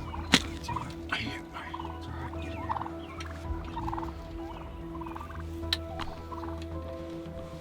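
Wild Merriam's turkeys gobbling and calling, many short calls in quick succession, over a steady low hum. Two sharp clicks stand out, one just after the start and one near the end.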